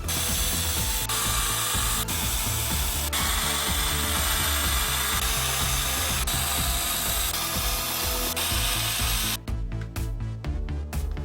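Workshop tool noise, a steady hissing, grinding-type sound in several short edited segments, over background electronic music. The tool noise stops about nine seconds in, leaving only the music.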